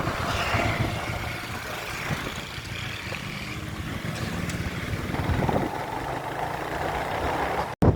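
A motor engine running steadily with a low rumble, as on the way out, with a sudden brief dropout near the end.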